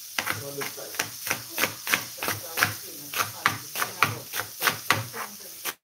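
Kitchen knife chopping on a cutting board, a steady run of about three to four chops a second.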